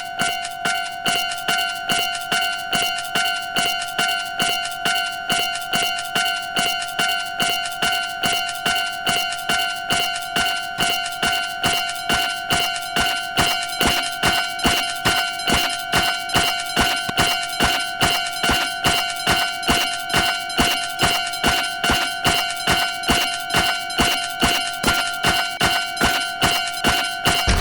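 Japanese railroad crossing alarm ringing its bright, multi-toned ding over and over at an even, quick rhythm. The strokes get a little louder about halfway through.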